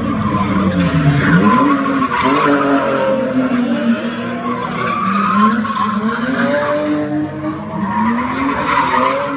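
BMW E36 drift car sliding sideways, its engine revving up and down while the rear tyres squeal. The engine note dips sharply about a second in, then climbs and falls again repeatedly.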